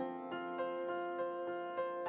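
Background music: a gentle piano-like melody with notes changing every third of a second or so.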